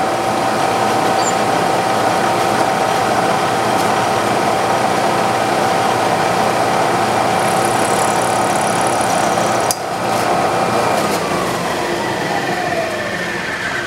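Bridgeport-style knee mill spindle running steadily with a constant whine while the end mill is brought up to the edge of a rifle bolt. There is a short click about ten seconds in, and the pitch falls in the last few seconds as the spindle slows down.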